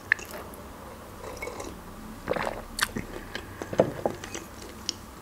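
Close-miked mouth sounds of a person chewing a mouthful of black bread with pâté: soft wet smacks and clicks in small clusters around the middle and again near the end.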